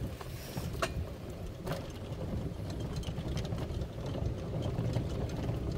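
Golf cart driving along a concrete cart path: a steady low rumble from the ride, with a couple of sharp clicks or rattles in the first two seconds.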